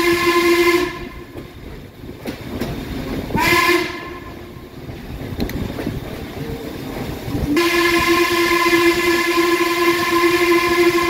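Steam whistle of Baldwin 2-6-6-2 locomotive 1309 blowing. A long blast cuts off about a second in, a short blast comes around three and a half seconds, and another long blast starts past seven and a half seconds and runs on. Between the blasts the train's running rumble and clatter fill in.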